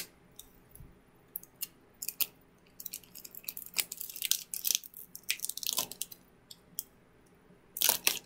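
Foil Pokémon booster pack wrapper crinkling and crackling as it is handled and opened, in irregular sharp bursts that grow busier a few seconds in.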